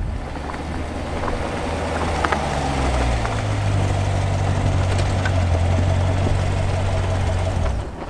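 A 2016 Chevrolet Corvette Stingray's 6.2-litre V8 idling, its pitch stepping up slightly two to three seconds in. The sound cuts off abruptly just before the end.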